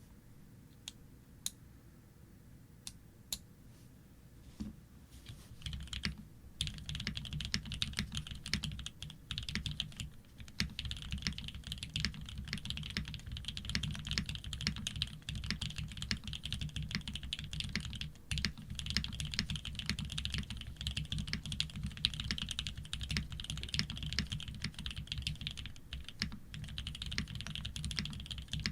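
Typing on a Shark60 custom mechanical keyboard with Fierce Girl switches, PBT keycaps and an aluminium plate with no foam. A few single key presses open it, then fast continuous typing starts about five seconds in.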